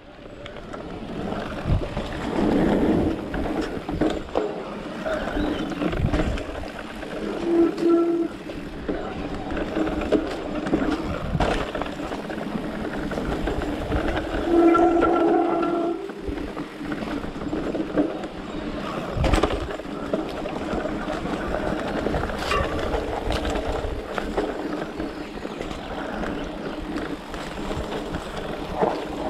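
Electric mountain bike ridden fast down a dirt forest trail: a steady rumble and rattle of tyres, chain and suspension, with frequent knocks over bumps. Twice a brief steady whine rises above it.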